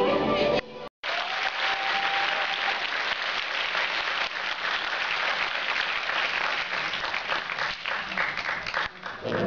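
Audience applauding steadily in a large hall for about eight seconds. Music cuts off abruptly just before the clapping starts and comes back at the very end.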